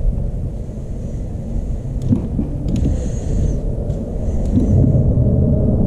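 A steady low rumble with a few faint clicks near the middle; a low hum grows louder near the end.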